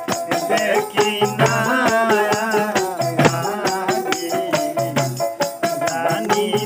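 Male voice singing a Bengali Baul folk song, accompanied by a hand-held rattle shaken in a steady, quick beat over a sustained low instrumental drone.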